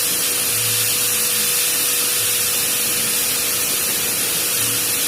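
Electric drill fitted with a 1/8-inch bit running at a steady speed: a constant motor whine over a strong hiss.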